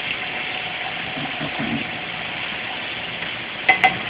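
Salmon fillets sizzling in a sauté pan, a steady hiss over a low machine hum, with two sharp clicks close together near the end.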